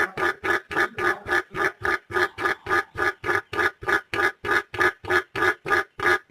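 A bird calling in a rapid, steady series of short nasal notes, about four a second.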